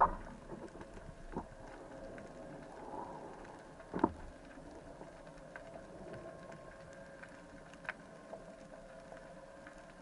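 Underwater sound picked up through a camera housing on a speargun: a steady low hum with scattered small clicks, and sharp knocks at the start and about four seconds in.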